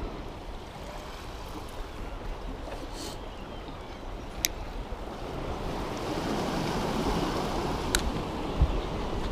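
Surf washing on the shore in a steady rush that swells in the second half, with wind on the microphone and two sharp clicks.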